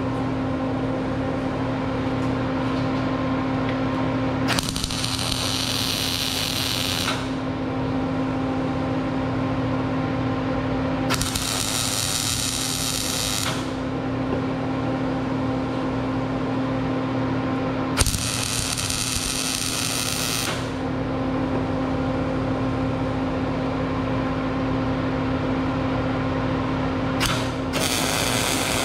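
Electric arc welding in four short runs of about two to three seconds each, a crackling hiss while the arc is struck, tacking a steel frame together; a steady electrical hum continues between the runs.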